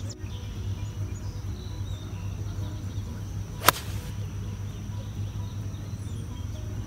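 A 4 iron striking a golf ball off the turf: one sharp crack about three and a half seconds in. The shot is a low cut.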